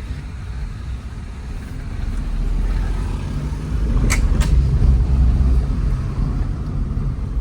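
Kia Picanto driving on a road test, its engine and road noise growing louder about two seconds in. Two sharp clicks come a little past the middle.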